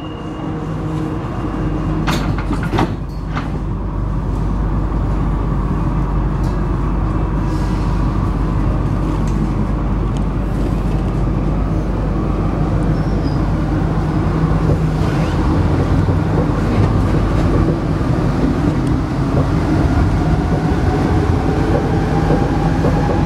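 Alstom NS-16 metro train pulling away and accelerating, heard from the driver's cab: a steady running rumble that grows slowly louder, with a motor whine rising in pitch near the end. A high door-closing tone fades out just at the start, and a few sharp clicks come about two to three seconds in.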